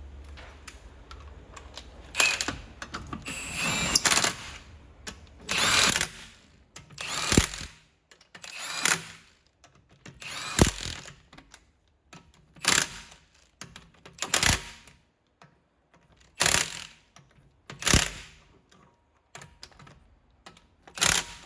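A tool working in short repeated bursts, about a dozen of them, each under half a second and roughly a second and a half apart.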